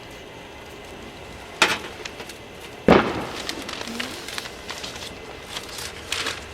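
Handling noise: two sharp knocks, the second one louder, then a run of quick clicks and rustling.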